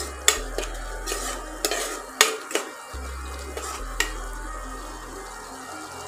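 Steel spoon stirring and scraping a frying onion-and-spice masala in a pot, with a faint sizzle; the spoon knocks sharply against the pot about five times in the first four seconds.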